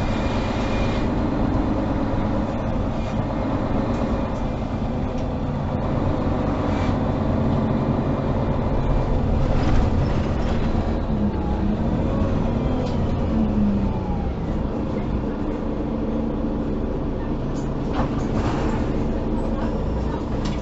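Mercedes-Benz O530 Citaro city bus heard from inside while under way: the diesel engine runs steadily, its pitch rising and then falling about halfway through, with a few short knocks and rattles from the bus.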